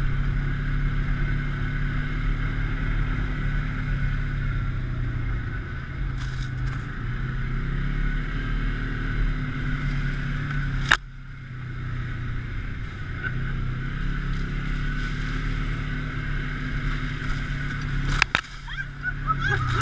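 An engine running steadily with a low drone. A sharp click comes about eleven seconds in and another near the end, each followed by a brief drop in the sound.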